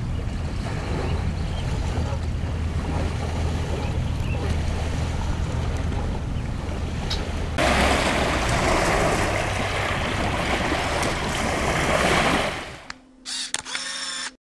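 Small lake waves washing onto a pebble shoreline, with wind rumbling on the microphone. About seven and a half seconds in, the surf becomes louder and brighter as waves break over the stones. A second or so before the end the water sound cuts out, leaving a few faint tones.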